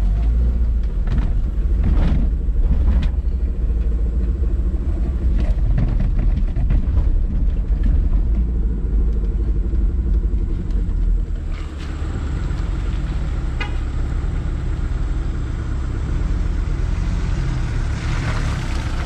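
A vehicle's engine and cabin rumbling as it drives a rough off-road track, with scattered knocks and jolts. About eleven and a half seconds in it becomes quieter and steadier.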